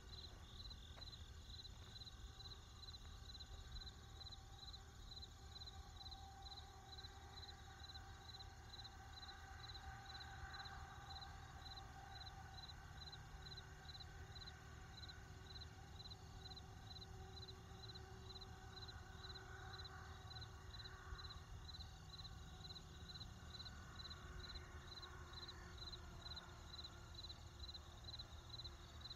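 Crickets chirping faintly in a steady, even rhythm of about two high-pitched chirps a second, over a low steady rumble.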